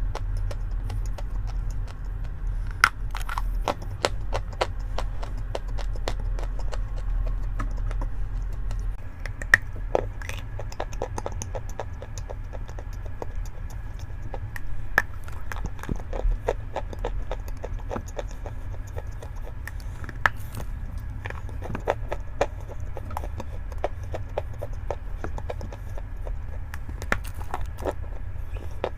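Close-up crunching of chalk: many sharp, irregular crackles and snaps over a steady low hum, which drops slightly about nine seconds in.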